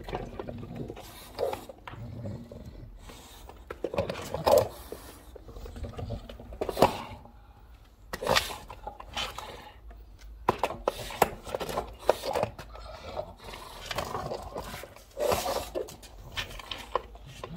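English bulldog gnawing on the nose of a wooden skateboard deck, its teeth scraping and clicking irregularly on the wood and torn grip tape, mixed with the dog's heavy breathing.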